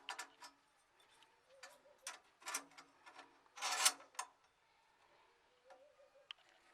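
Irregular light clicks and taps with short rubbing scrapes from hand work, including one longer scrape a little before four seconds in.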